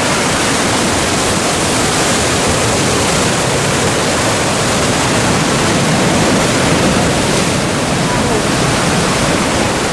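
Heavy sea surf breaking against shoreline rocks and churning into white water: a loud, steady rush of noise.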